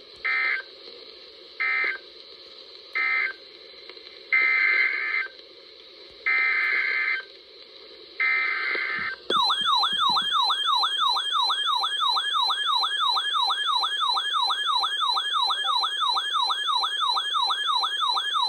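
Emergency Alert System data bursts: three short end-of-message bursts, then three longer SAME header bursts for the next alert. A loud, rapidly warbling siren-like attention tone follows, sweeping up and down two to three times a second, over a steady background hiss.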